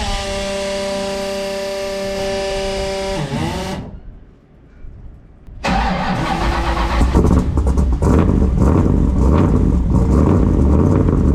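Turbocharged Ford Mustang engine cold-started: the starter whines steadily for about three seconds, winds down and stops. A second or two later, a new attempt catches and the engine fires up and runs loudly, settling into a rough, steady rumble.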